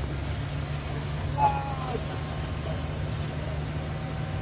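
Tourist jeep's engine running steadily under load as it climbs a steep, narrow hill road, heard from on board with a low drone and road rumble. A short, falling cry cuts through about a second and a half in.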